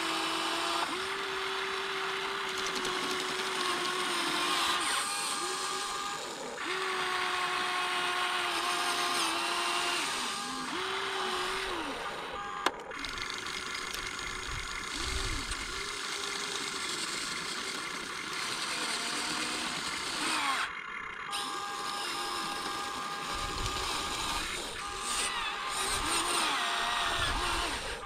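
Huina 1593 RC excavator's electric motors whining in spurts as its functions are worked, each tone held steady for a second or two before stopping or shifting pitch, with one sharp click about halfway.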